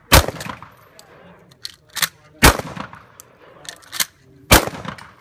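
Black-powder pump-action shotgun fired three times, about two seconds apart, with fainter clacks between the shots as the slide is worked.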